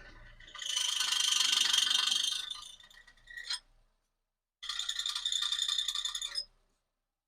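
A car rattling and buzzing as it is shifted into reverse gear, from a vibration fault. It comes in two spells of about two seconds each, with a short burst between them.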